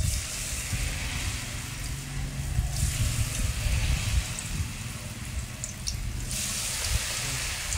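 Rice-flour-battered bitter gourd slices sizzling as they are dropped into hot oil in a wok. The hiss starts sharply and flares up again about three seconds and six seconds in as more slices go in. The oil is hot enough to crisp the batter at once.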